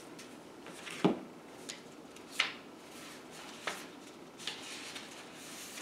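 Books and paper sheets being handled: a closed book set down with a knock about a second in, then a few lighter taps and paper rustling as sheets are sorted.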